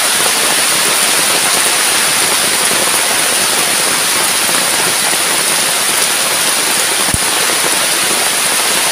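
Heavy rain falling steadily on forest foliage, a loud even downpour.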